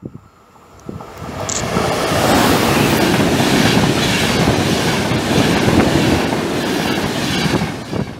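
ÖBB EuroCity passenger train, coaches hauled by an E.190 Taurus electric locomotive, running past: a loud rush of wheel and rail noise with a rapid clatter. It swells up about two seconds in and dies away near the end.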